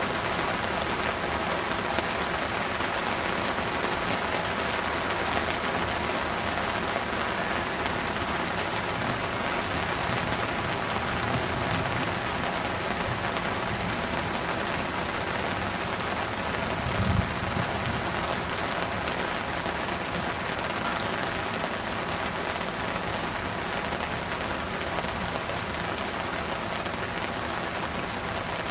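Heavy downpour of rain hissing steadily on surfaces during a thunderstorm, with one brief low thump about two-thirds of the way through.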